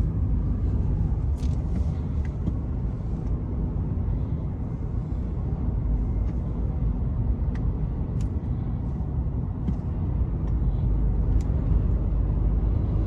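Steady low rumble of road and engine noise inside the cabin of a moving vehicle.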